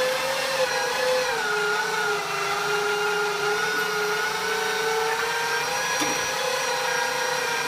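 Electric meat grinder running with a steady motor whine as food is pressed down its feed tube with the plunger. The whine sags slightly in pitch about a second in, as the motor takes the load, and climbs back near the end.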